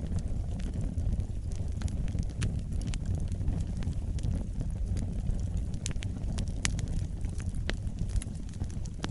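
Wood fire burning in a fireplace: a steady low rumble of flames with frequent sharp crackles and pops, a few louder snaps in the second half.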